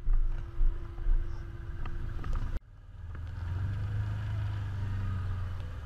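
Side-by-side UTV engine running as the machine rolls over rough ground, with knocks and thumps. About two and a half seconds in the sound breaks off abruptly and gives way to a steady, low engine drone.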